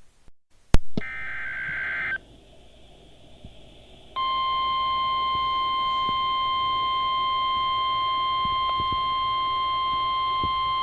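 Emergency Alert System tones over NOAA Weather Radio: a click, then about a second of warbling SAME digital data tones. After a short gap, the steady 1050 Hz weather radio warning alarm tone starts about four seconds in and holds, announcing a new severe thunderstorm warning.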